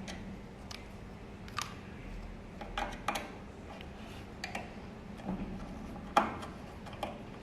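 Scattered small clicks and taps of a screwdriver and screws being worked on an oven's metal casing during disassembly, with a sharper knock about six seconds in.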